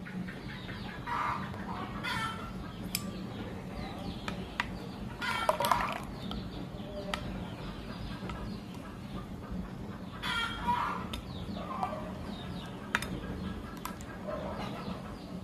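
Chickens clucking in short bouts several times, loudest about halfway through, over a steady low hum. A metal spoon clinks now and then against a ceramic bowl as a sauce is stirred.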